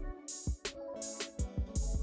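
Background music with a steady drum beat; the bass drops out for a moment near the start, then comes back.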